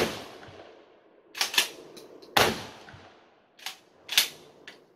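Wolverine XD 12-gauge pump-action shotgun fired twice, at the start and about two and a half seconds in, each shot echoing. After each shot comes a quick pair of sharp clacks as the pump is cycled back and forward to chamber the next shell.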